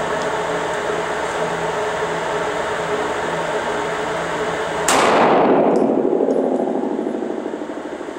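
A single 9mm pistol shot (115-grain full metal jacket) about five seconds in, with a long echo off the concrete walls of an indoor range dying away over the next few seconds.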